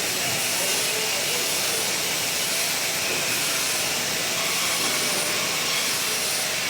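MIG welding arc, a steady hissing crackle that runs on without a break.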